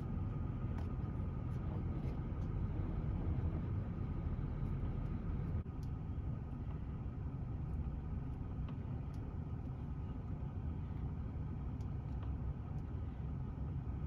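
Steady low rumble inside a pickup cab, with a few faint clicks as the plastic shift knob is twisted back onto the shifter.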